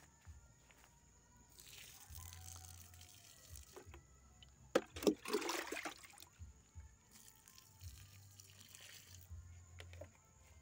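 Water splashing as it is poured out by hand in three bursts, the loudest about halfway through with a few sharp knocks.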